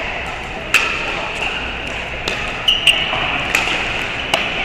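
Pickleball paddles striking a plastic pickleball during a rally: a series of sharp pops, about six in under five seconds, each with a short ring.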